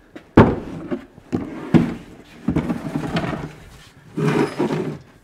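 Wooden cabinet knocking and bumping as it is carried and set upright on a workbench. There is a sharp knock about half a second in, a few more knocks, then scuffing as it is shifted into place.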